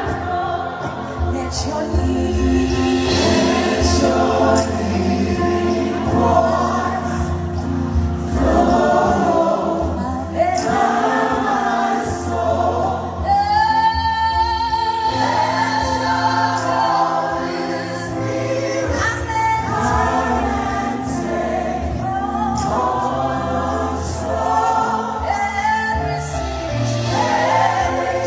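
Live gospel worship song: a woman singing lead into a microphone over a backing choir and band, with one long held note with vibrato about halfway through.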